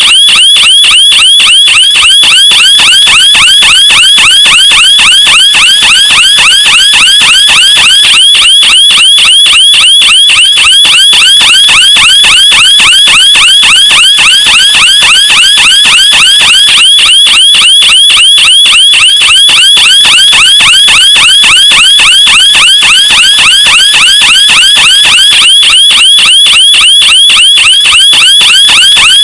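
Car alarm siren sounding a loud, rapidly repeating electronic warble without a break.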